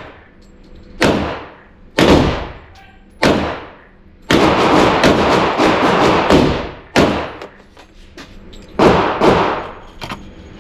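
Gunshots at a range, each loud crack ringing out and dying away: three single shots about a second apart, then a quick string of overlapping shots for a few seconds, and two more near the end.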